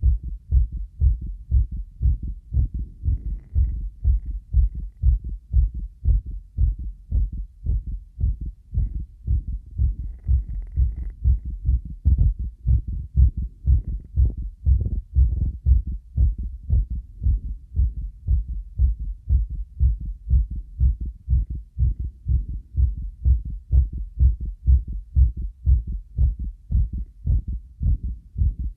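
Human heartbeat: a steady, even rhythm of low lub-dub thumps, edited to give a stereo, three-dimensional effect.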